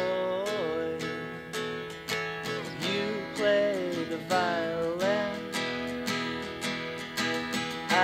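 Acoustic guitar strummed in a steady rhythm, with a wordless vocal line gliding up and down over it.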